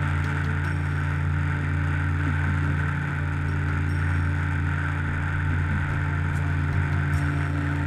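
Steady hum of an electric motor-driven machine running continuously, with an even hiss over it.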